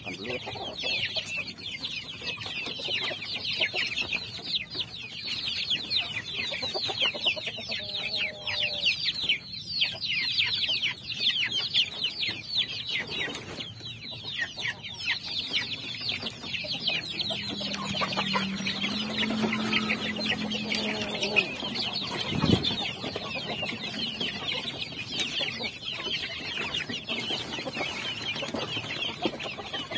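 A flock of young chicks peeping all at once, a dense, unbroken chorus of short, high peeps that slide downward in pitch.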